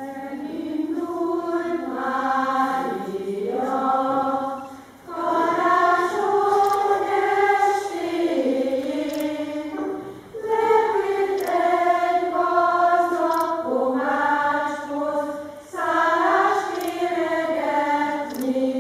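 Choir of women and girls singing, in four phrases with short breaks between them.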